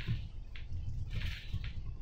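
Moving bus heard from inside: a steady low engine and road rumble, with short rattles and clicks from the body and fittings and a brief hiss about a second in.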